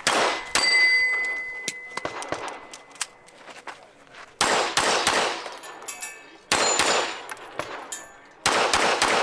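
Pistol shots at an action-pistol stage: two quick shots at the start, then three more about two seconds apart. Several shots are followed by a steel target ringing from a hit.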